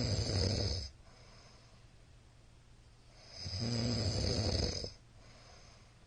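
A middle-aged man snoring loudly in his sleep: one snore ends about a second in, and a second, longer snore comes about three seconds later.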